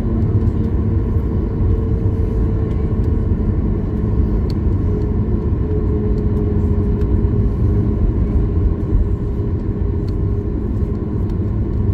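Boeing 737 MAX 8 taxiing, heard from inside the cabin: a steady low rumble from its CFM LEAP-1B engines at taxi power and the aircraft rolling along the taxiway, with faint steady tones above it.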